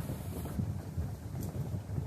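Wind buffeting the microphone: an uneven low rumble that swells and dips in short gusts.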